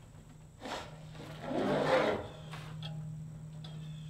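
A sheet of steel siding handled against a wall: a soft knock, then a louder rustling swell lasting under a second about two seconds in, followed by faint ticks, over a steady low hum.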